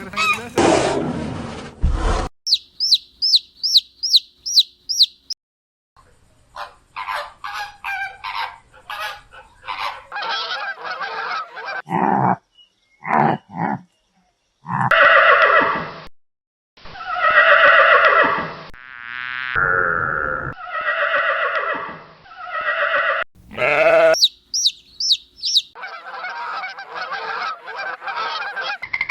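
A string of different animal calls cut one after another. Loud bleating livestock calls fill the middle, and a run of quick, high repeated chirps comes near the start and again near the end.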